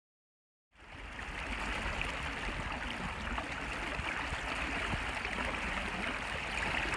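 Silence for under a second, then the steady rush of a fast, shallow stream flowing over riffles, with a low rumble beneath it.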